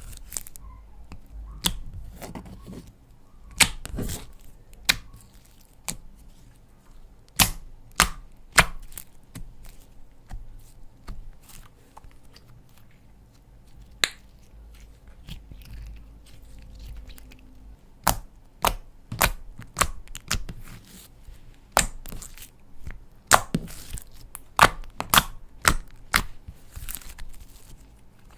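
Slime being squeezed and worked by hand, giving irregular sharp pops and clicks, in clusters around the middle and toward the end.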